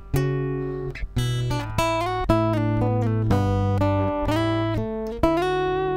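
Recorded guitar track of ringing chords, a new chord struck about every second, played back through a compressor that evens out its loud and soft parts.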